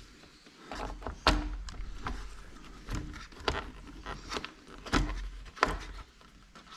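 Plastic clicks and knocks of an Ethernet cable connector being fitted into the back of a Lowrance Elite FS fishfinder, with the cables handled: about five sharper clicks spread over several seconds over low handling thumps.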